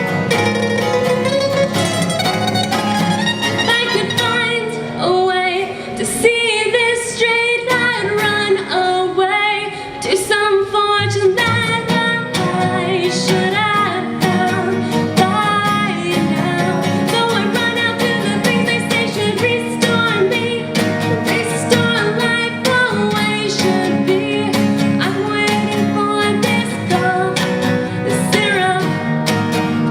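Live acoustic music: a guitar played under a singing voice, with a bowed string line.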